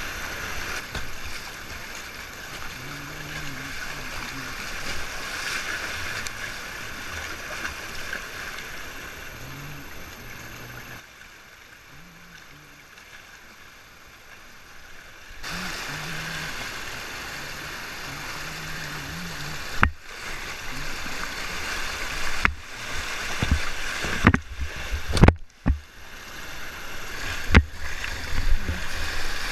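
Fast river water rushing and splashing around a whitewater kayak as it is paddled down rapids, going quieter and muffled for a few seconds near the middle. In the last third there are several sharp knocks and splashes.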